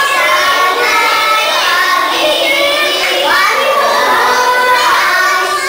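A group of young girls singing together in unison.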